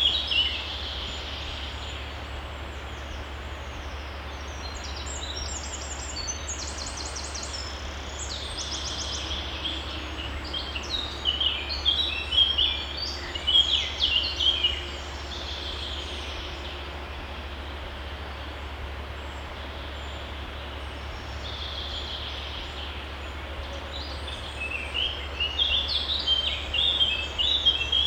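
Songbirds singing in several bursts of quick, high chirping phrases over the steady rush of a woodland stream.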